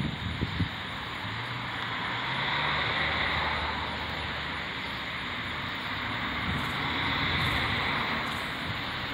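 Steady outdoor night background noise: an even hiss that swells gently twice, with a faint low hum in the first few seconds.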